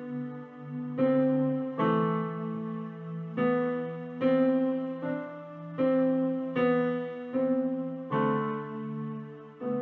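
Electronic keyboard played with a piano sound: a slow improvised piece of chords struck about once or twice a second, each ringing out and fading over a held bass.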